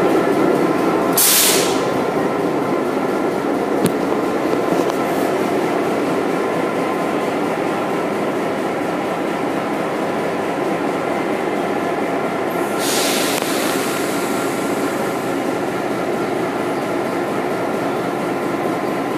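An EMD GP7 diesel locomotive, with its 16-cylinder 567 two-stroke engine, idling at a standstill with a steady rumble and hum. Two short hisses of released air cut through it, about a second in and again about two-thirds of the way through.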